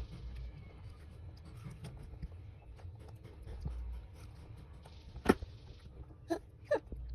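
Faint handling and mouth noises with small clicks, one sharp click about five seconds in, then a baby's two short vocal sounds, each falling in pitch, near the end.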